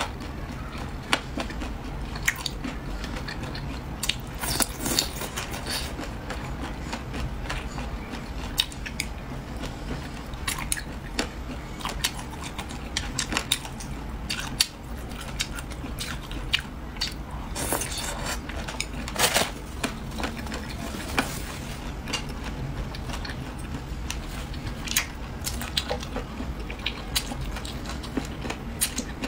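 Close-up chewing and biting of spicy chicken feet in chili oil: irregular wet smacks, clicks and small crunches as the skin and joints are gnawed, over a faint low hum.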